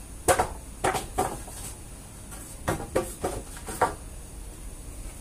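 Wooden planks knocking against each other and the wall as they are stood on end: about seven sharp knocks in two bunches, the first in the opening second and the second a couple of seconds later.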